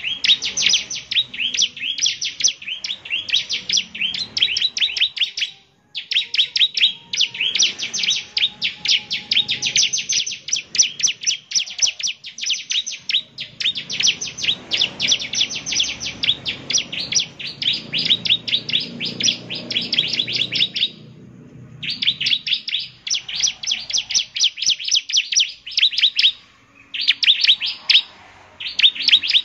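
Bar-winged prinia (ciblek) singing vigorously: long runs of rapid, high, repeated chirping notes, broken by a few short pauses.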